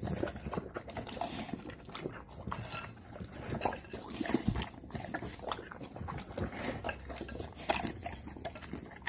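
Bullmastiff eating chicken out of a glass bowl: quick, irregular chewing, smacking and slurping.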